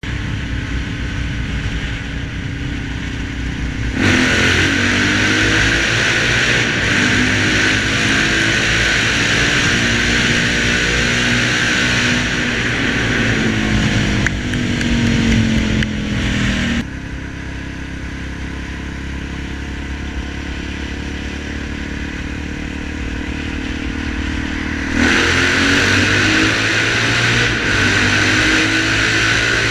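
Suzuki DR-Z400's single-cylinder four-stroke engine being ridden hard, revs rising and falling. It gets louder and harsher about four seconds in, drops back about halfway through, and picks up loud again near the end.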